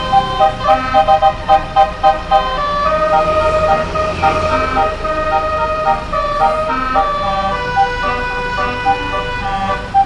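Bus's basuri telolet horn, a multi-note musical horn, playing a quick tune of short stepped notes, with a couple of longer held notes about three to four seconds in.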